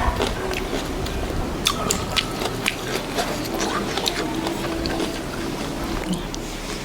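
Eating sounds: chewing and small sharp clicks, with a faint voice in the background and wind rumbling on the microphone.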